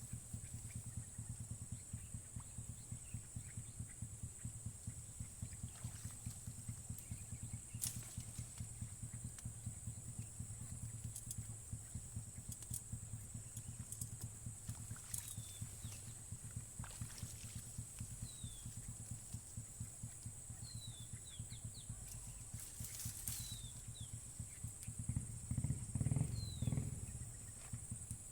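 Outdoor wetland ambience: a steady high-pitched insect drone over a low, fast pulsing, with several short falling bird chirps in the second half. A louder low rumble comes near the end.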